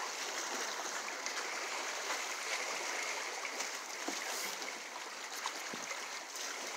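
Small sea waves washing and splashing against shoreline rocks: a steady wash of water noise dotted with small splashes.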